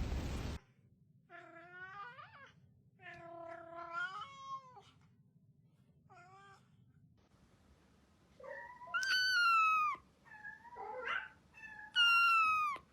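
Domestic cat meowing repeatedly: a few shorter meows, then two loud, drawn-out calls that fall in pitch near the end.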